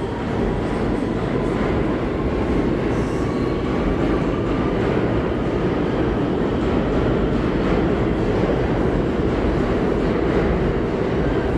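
Subway train rumbling along the tracks, a steady loud low rumble with rail clatter that grows slightly louder toward the end.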